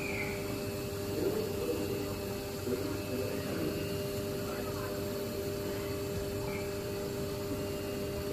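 Underground railway platform ambience: a steady droning hum with faint distant voices in the background.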